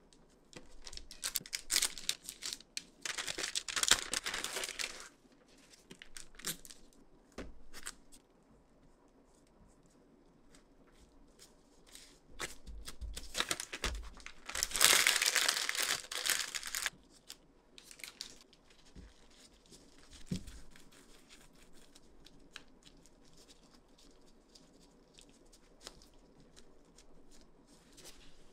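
Baking parchment and plastic wrap crinkling and rustling as a block of cookie dough is wrapped by hand. The rustling comes in two longer spells, a few seconds in and again around the middle, with light scattered taps and rustles between.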